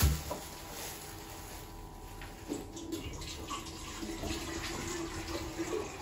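Water running from a tap, with a thump right at the start.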